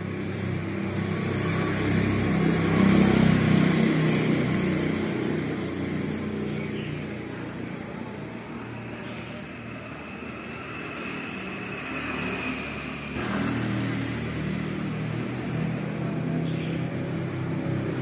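Motor vehicle engine noise. It swells to a peak about three seconds in, fades, then grows again later, as passing traffic does.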